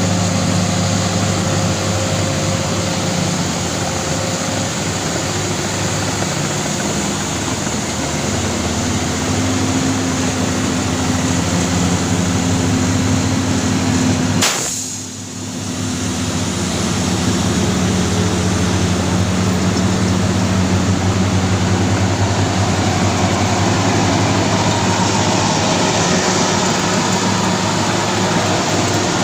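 Heavy diesel engines of crawler bulldozers and a loaded logging truck running steadily under load as the bulldozers pull and push the truck. A sharp click about halfway through, followed by a brief dip in level.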